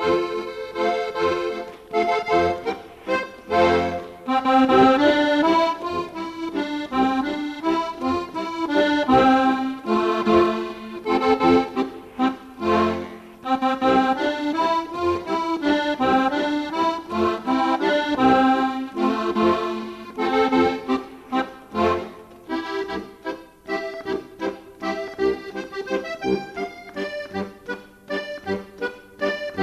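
Background music led by an accordion, a traditional folk tune with a steady pulsing rhythm.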